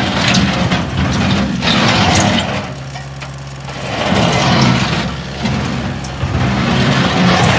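2010 Bobcat S185 skid steer loader's turbocharged engine running loud at working revs. It drops to a lower, quieter note for about a second in the middle before picking up again.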